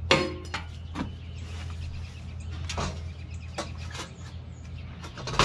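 Sheet-metal breaker panel cover being lifted, turned and set down on a wooden table: scattered knocks and clanks, the loudest just after the start and at the very end, over a steady low hum.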